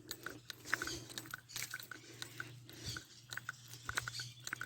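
Scattered short bird chirps and clicks, a few each second, over a faint steady low hum.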